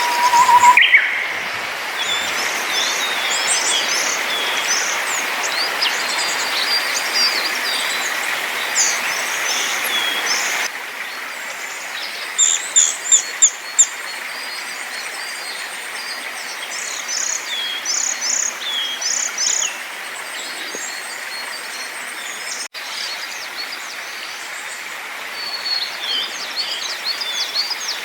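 Small woodland songbirds singing in spring: short, repeated high phrases, with clusters of quick notes around the middle and again near the end, over a steady background hiss. The recording cuts abruptly between takes a few times.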